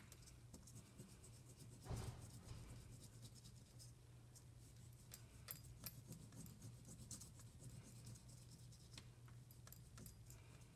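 Faint scratching of a black oil pastel colouring in on paper, with scattered small ticks and a low steady hum beneath.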